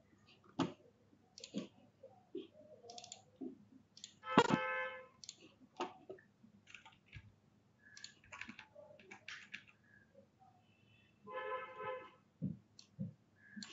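Computer mouse and keyboard clicking, scattered and irregular. Two short sounds of steady pitch stand out, the louder about four seconds in and another near twelve seconds.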